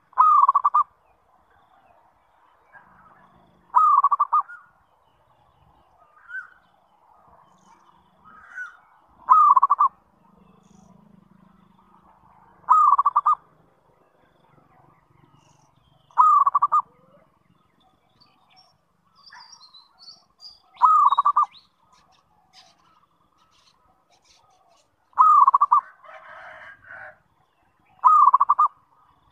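Zebra dove (perkutut) cooing its song: eight loud, short coos about three to four seconds apart, with a few soft notes between them.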